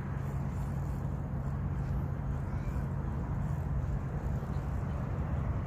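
Steady low rumble of road traffic with a constant low hum.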